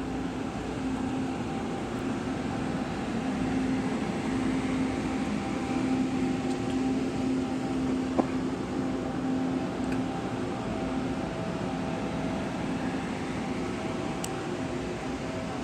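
Steady electric hum of a Taiwan Railways push-pull Tze-Chiang express train, a few even tones over a mechanical drone that grows a little louder then holds. A single sharp click about eight seconds in.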